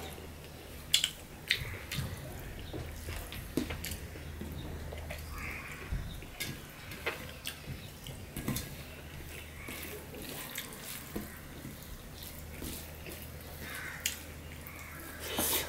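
Close-up eating sounds: a hand mixing and squishing rice and vegetables on a steel plate, and chewing, with scattered sharp clicks over a steady low hum.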